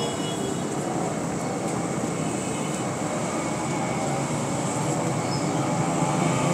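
Steady rumbling din of street traffic, with a few faint high squeaks now and then.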